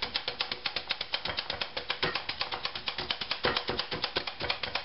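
Hand-held spring-loaded blade meat tenderizer being pressed rapidly and repeatedly into a slice of beef round on a wooden board, making a fast run of sharp clicks with a few louder knocks, as its small blades punch through the meat to tenderize it.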